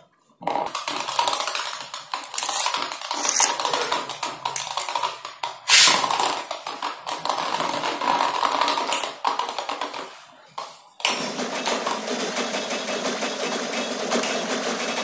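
Small homemade spinning tops whirring and rattling against a plastic bucket lid, with many small clicks and knocks and one loud knock about six seconds in.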